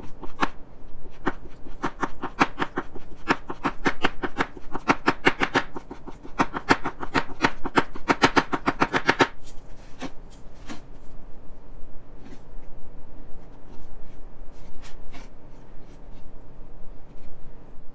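A knife chopping a soft bath product on a cutting board: a fast run of blade taps for about nine seconds, then only occasional clicks.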